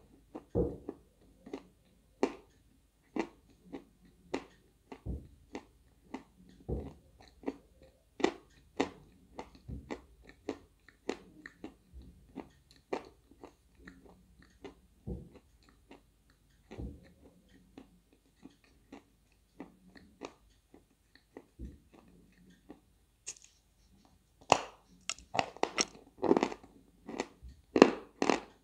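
A piece of dry 'White Velour' eating chalk being bitten and chewed: irregular crisp crunches, one or two a second, coming faster and louder in the last few seconds.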